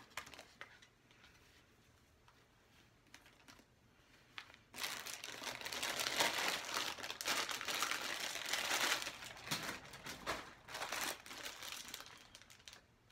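Clear plastic poly bag crinkling as it is handled, starting about five seconds in and going on for several seconds.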